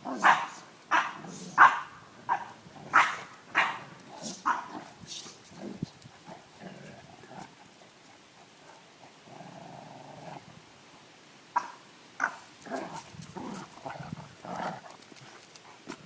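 Dogs at play, barking and growling. A quick run of sharp barks a little under a second apart opens the stretch, it goes quieter in the middle, then a second burst of barking follows past the middle.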